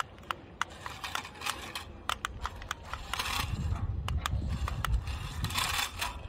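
Scattered small clicks and scraping of toy RC car tyres on gritty concrete as the RC Audi strains against a tow line and drags the rock crawler, with two short hisses and a low rumble coming in about halfway.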